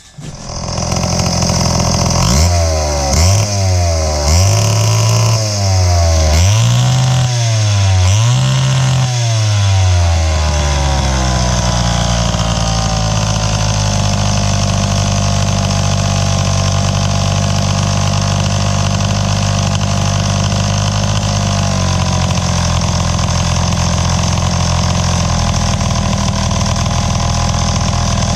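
Wright C-50 chainsaw's 77 cc two-stroke engine running on its rebuilt carburettor. It is revved up and down about four times, then settles into a steady idle.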